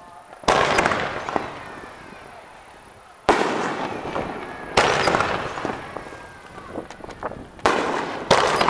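Aerial fireworks shells bursting overhead: five sharp bangs, two close together near the end, each trailing off in a fading rumble over a second or two.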